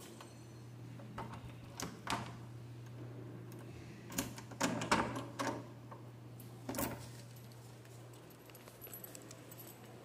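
Room key with its tag jangling and clicking in the lock of a wooden door as the door is locked. There are a few sharp clicks, the loudest cluster about four to five and a half seconds in, over a steady low hum.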